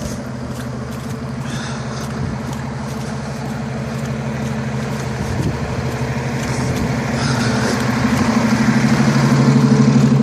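City bus diesel engine running with a steady low hum and fast pulsing, growing louder over the last few seconds.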